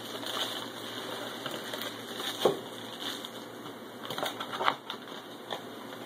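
Plastic air-cushion packaging crinkling and crackling as hands handle it and pull it away, with scattered sharper crackles, the loudest about two and a half seconds in.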